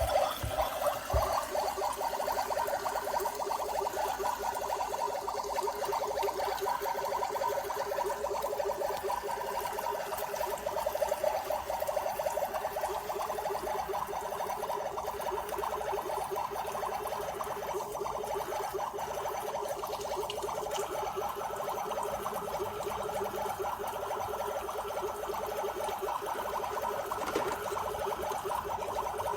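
Water running steadily from a battery-powered toy sink's faucet, splashing into the plastic basin.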